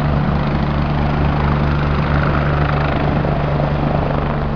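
Helicopter running close by: rotor blades beating rhythmically under a steady low engine hum, easing off slightly near the end.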